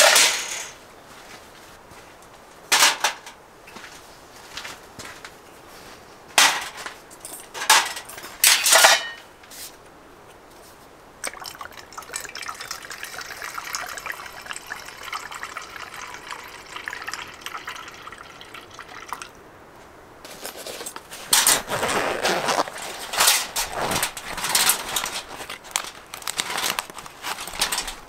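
Stainless-steel cookware set down and clinking on a metal mesh table. Liquid is poured steadily for several seconds in the middle. Near the end comes the rustle and clatter of a fabric pouch of tools and metal cutlery being opened and handled.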